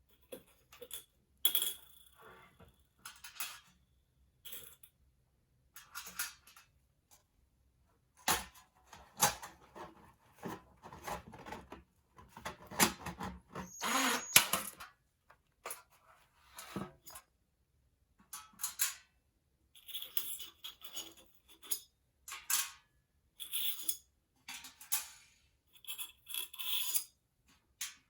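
Stainless steel sheet and small metal parts being worked by hand with tools: irregular metallic clicks and clinks, with a denser run of scraping and rattling around the middle.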